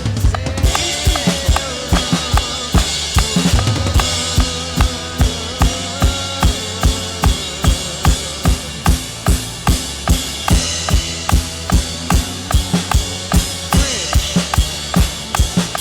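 Drum kit played along with a worship-song backing track: the kick drum keeps a steady beat of a little over two hits a second, with snare and cymbals over sustained keys and guitar.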